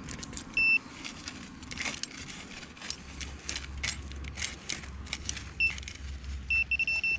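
Scraping and crunching of digging by hand in stony soil, with a handheld pinpointer probing the hole. The pinpointer gives short high beeps about half a second in and again late, then a held high beep near the end as it closes on the metal target.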